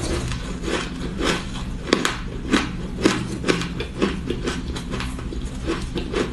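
Close-up crunching of soft, crumbly ice being bitten and chewed: a quick, irregular run of crisp crunches, about two a second, over a low steady hum.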